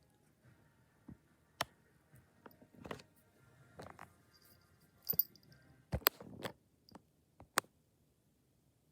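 Scattered soft clicks and taps at irregular intervals, a dozen or so, the sharpest coming in the second half.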